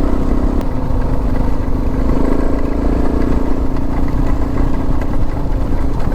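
Suzuki DR650's single-cylinder engine running at a steady, even pitch as the motorcycle is ridden along at a constant speed.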